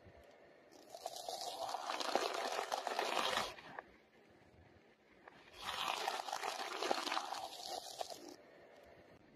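A car tyre rolling over a cardboard tube of round candies, crushing it with crunching and crinkling. This is heard twice: about a second in for some three seconds, then again from about five and a half seconds in.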